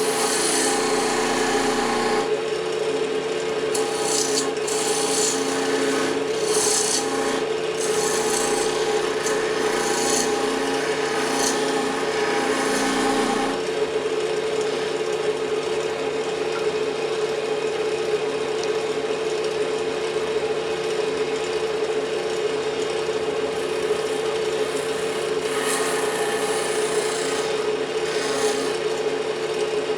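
Wood lathe running with a steady motor hum while a turning tool cuts a spinning fatwood (resinous pine knot) blank, a continuous scraping hiss that comes and goes as the tool works.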